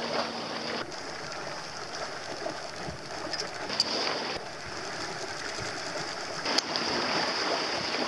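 Sea water rushing and lapping along the hull of a sailboat under way, as a steady wash of noise with a couple of short sharp knocks.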